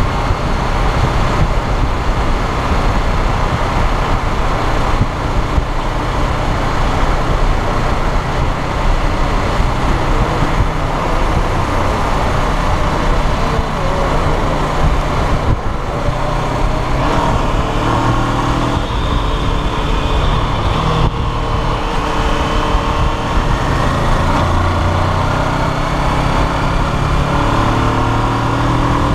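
Honda CBR500R's parallel-twin engine running at road speed under heavy wind buffeting on the microphone. In the second half the engine note rises and falls with throttle changes.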